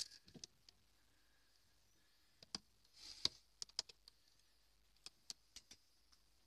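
Faint, scattered sharp clicks and a short scratch about three seconds in, from kittens' claws catching on a corrugated cardboard scratcher during play.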